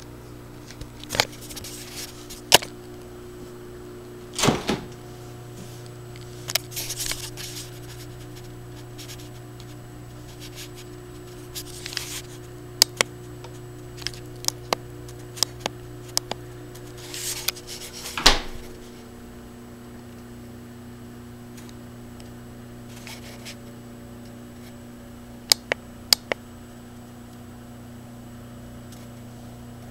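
Steady low hum of a household appliance, with scattered clicks and knocks of things being handled. A louder thump a little past halfway fits a refrigerator door being shut, after which the hum shifts to a lower tone.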